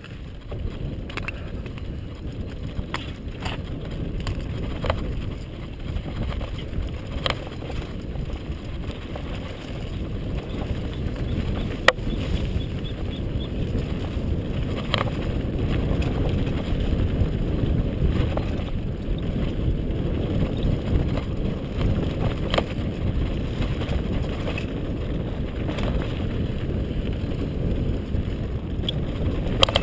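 Mountain bike descending a rough dirt singletrack, heard from a helmet-mounted GoPro: a steady low rumble of tyres on dirt mixed with wind on the microphone, with scattered sharp clicks and knocks from the bike and trail.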